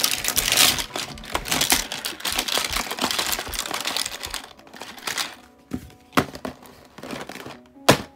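Plastic and silicone simple dimple fidget toys clattering as they are dropped and shuffled into a cardboard box, thinning out to a few separate knocks, then one sharp knock near the end as the box lid goes on.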